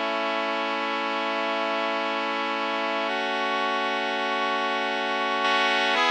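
A recorded brass section holding sustained chords, run through a vintage EQ plugin emulation; the chord changes about three seconds in and again near the end.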